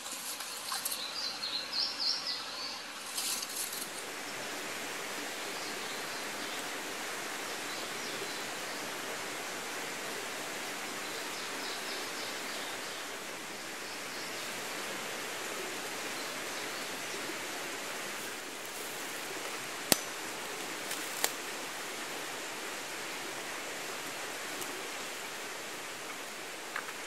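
Steady outdoor forest ambience, an even hiss of background noise, with a few high bird chirps in the first seconds. Two sharp clicks about a second apart come some two-thirds of the way through.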